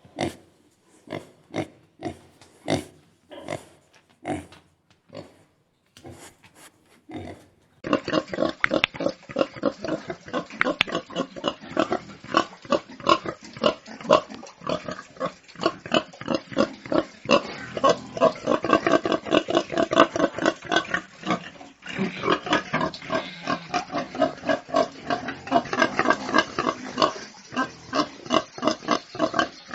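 Domestic pigs grunting: first a run of short, separate grunts about two a second, then from about eight seconds in, dense and rapid overlapping grunting that goes on to the end.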